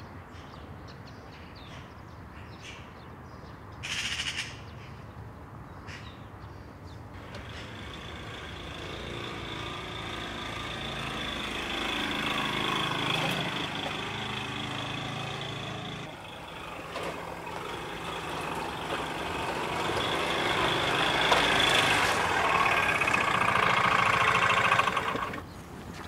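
Motor scooter engine running as it rides along, swelling louder twice and stopping suddenly near the end. A brief rush of noise comes about four seconds in, before the engine is heard.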